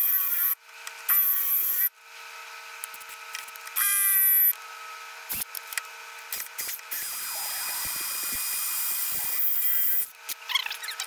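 Cordless drill boring a hole through the camper's steel frame, with cutting oil on the bit. The motor whines steadily, and the bit bites in three loud, high-pitched bursts in the first five seconds, then runs more evenly.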